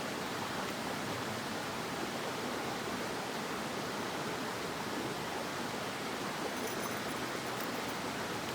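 Mountain stream water running steadily, an even rushing hiss. A few faint light ticks sound near the end.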